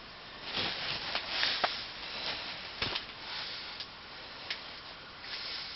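Rustling and scattered sharp clicks and light knocks of things being handled, with no voice.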